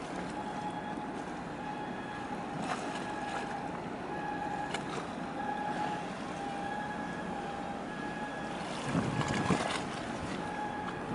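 Steady harbour ambience of wind and water, with a repeating high beep heard again and again. About nine seconds in, a couple of low buffets of wind on the microphone are the loudest part.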